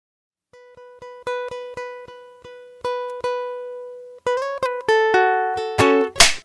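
Solo ukulele music: a single plucked note repeated over and over, then a quickening run of climbing notes, with a short loud noisy burst near the end.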